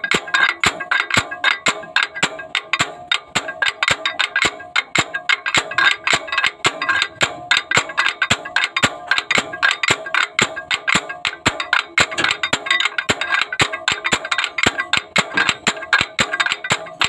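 Homemade steel slide-hammer puller clanging metal on metal as its sliding weight is driven repeatedly against the stop, about three or four ringing strikes a second, to draw a broken injector sleeve out of a Cat 3116 diesel's cylinder head.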